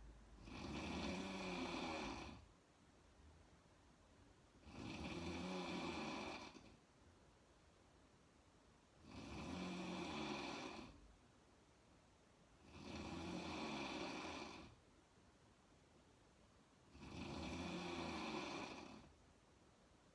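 A woman snoring in a slow, regular rhythm: five snores, each about two seconds long, coming about every four seconds with quiet breathing between.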